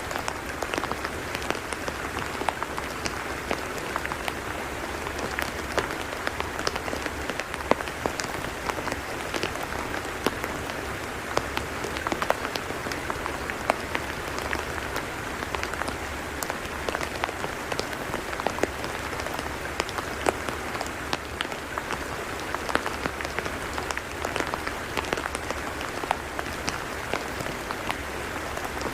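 Steady rain falling on a tidal mudflat: an even hiss with many separate drops ticking through it.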